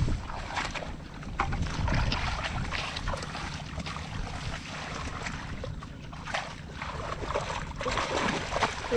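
Hands splashing and sloshing in shallow muddy water, in irregular bursts, with wind rumbling on the microphone.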